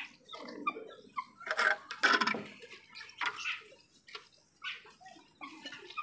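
Weathered wooden pigeon-coop door being unlatched and swung open, with scattered short knocks and bird calls; the loudest cluster comes about two seconds in.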